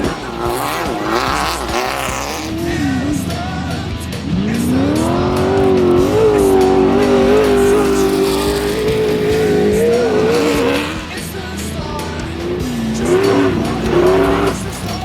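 Desert off-road race vehicle's engine at full throttle: the note climbs steeply about four seconds in and holds high for several seconds before dropping away, then climbs and falls again briefly near the end.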